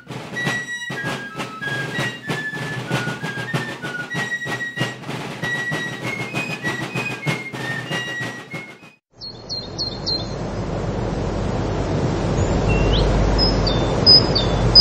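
Instrumental background music with a bright stepwise melody over rhythmic percussion stops about nine seconds in. After a short gap, a steady rushing noise with a deep rumble swells up, with short high chirps over it.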